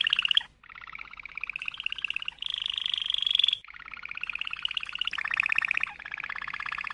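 Domestic canary singing a string of rapid rolling trills, each phrase a fast run of repeated notes held for about a second before it switches to another pitch and speed, with brief pauses about half a second in and at about three and a half seconds.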